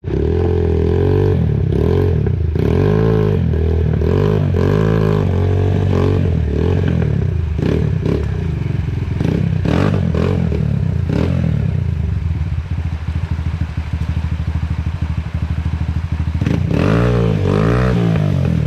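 Dirt bike engine revved up and down again and again, with clattering knocks, settling to a lumpy idle about twelve seconds in, then revving again near the end.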